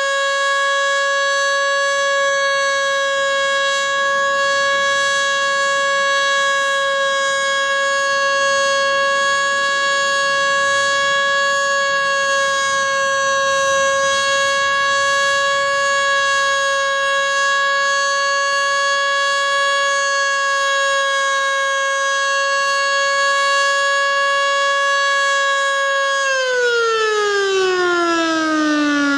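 Federal Signal Model 2 single-tone electromechanical warning siren sounding a steady test tone, held at one pitch. About 26 seconds in it winds down, the tone falling steadily in pitch as the rotor slows.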